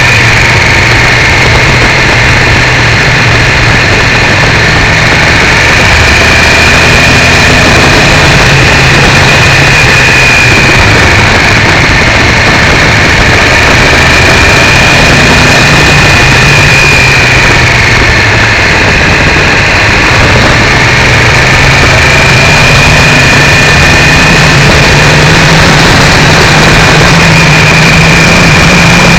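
Triumph 955i three-cylinder motorcycle engine running under way, its pitch slowly rising and falling with the throttle, buried in loud wind rush and distortion on a cheap camera strapped to the bike's foglight.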